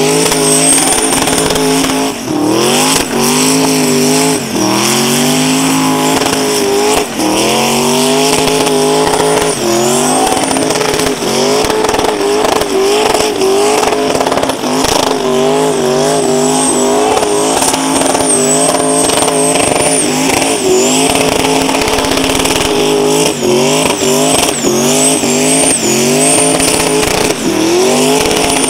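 Twin-turbocharged and supercharged Audi burnout car doing a burnout. The engine is held at high revs, dipping and climbing back again and again, while the spinning tyres squeal in stretches.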